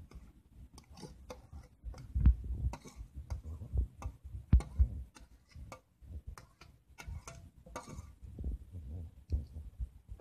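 Metal spoon clicking and scraping against a metal pot while stirring raw rice and tomato juice, in an irregular run of small clicks with a few louder dull knocks.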